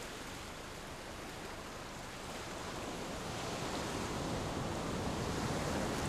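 Ocean surf breaking and washing onto a sandy beach, a steady rushing that grows louder through the second half.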